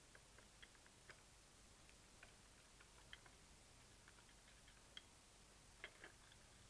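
Faint, irregular small clicks of fingers pressing plastic clock hands onto the clock movement's centre spindle, a slightly louder pair about six seconds in, over near-silent room tone.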